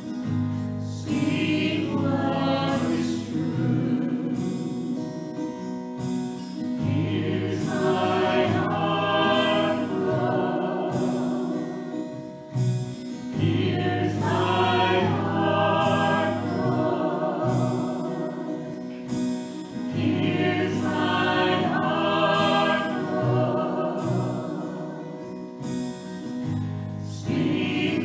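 Church worship team of men and women singing a slow contemporary worship song together, with instrumental accompaniment.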